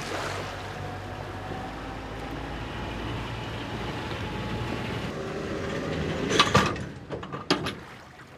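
A boat's engine running as the boat drives up onto its trailer, the rumble slowly growing louder. About six and a half seconds in come loud metallic clanks as the bow runs home and the Bar Catch latches onto it, then another clank about a second later.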